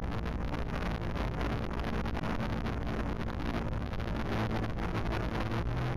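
A steady low mechanical drone, like a running motor, with a rough rushing noise over it.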